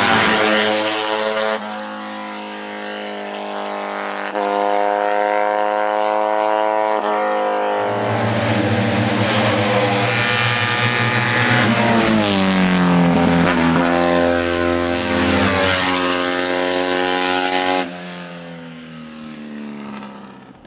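Small-capacity Fiat 500-type historic racing car's engine revving hard, its pitch climbing and then dropping sharply at each gear change. About halfway through the pitch slides down and climbs again, and over the last few seconds the engine fades as the car pulls away.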